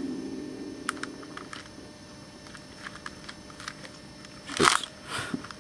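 Plastic 5x5 Rubik's cube being turned by hand: its layers click and clack in short, irregular bursts, with a louder burst about four and a half seconds in.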